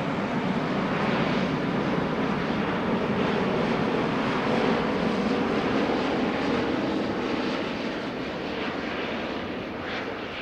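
Engines of a large airliner passing by, a loud steady noise that fades away over the last few seconds.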